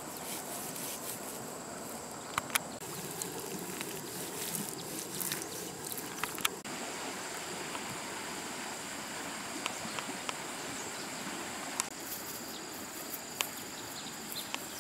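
Outdoor insect chorus: insects trilling steadily at a high, even pitch, clearest from about halfway in, over a steady background noise, with a few sharp clicks.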